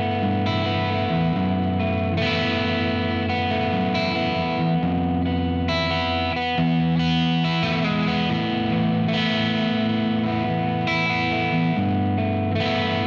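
Distorted electric guitar played through a Friedman JEL-100 100-watt valve amplifier head, sustained overdriven chords changing every second or two.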